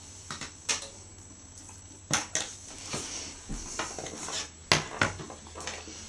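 Scattered light clicks and clatter of hands handling laptop RAM modules, with sharper clicks about two seconds in and again near the end.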